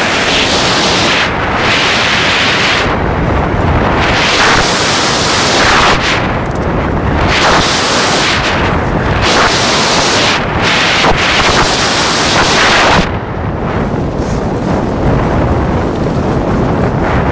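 Wind buffeting the microphone of a camera carried down a ski slope: a loud, rough rumble, with a hiss that swells and fades every second or two.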